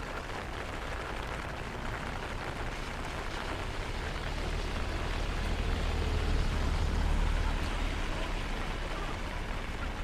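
Steady rain falling, an even hiss with a low rumble that swells in the middle and eases near the end.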